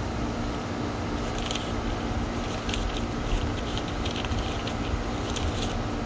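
Steady outdoor background: a low rumble with a faint steady hum, and scattered short, faint high ticks.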